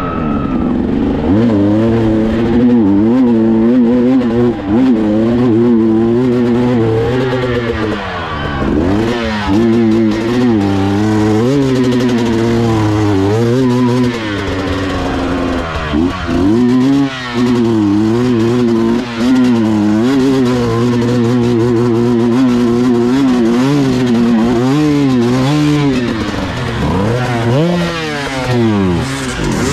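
Dirt bike engine revving hard and unevenly under heavy load on a steep muddy hill climb, the revs rising and falling over and over as the throttle is worked. The engine briefly drops and picks up again several times.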